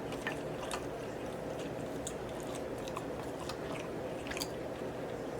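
Close-up chewing and mouth sounds of a person eating: scattered small wet clicks and smacks over a steady low background hum.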